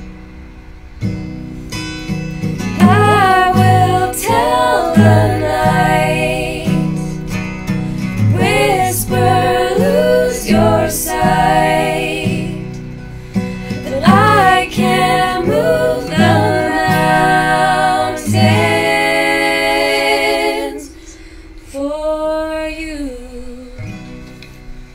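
Two women's voices singing in harmony over an acoustic guitar. The guitar stops about nineteen seconds in while the voices hold a long chord, then one last short phrase falls in pitch and fades out near the end.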